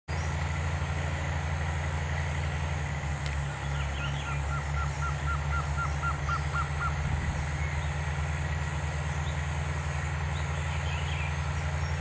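Male blue-crowned trogon singing: a run of about a dozen short, even notes at about four a second, lasting some three seconds, over a steady low hum.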